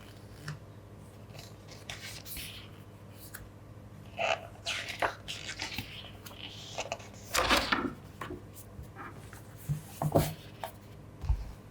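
Photobook and its packaging being handled: scattered rustles and light taps, with a longer, louder rustle about seven and a half seconds in and a few sharp knocks about ten seconds in.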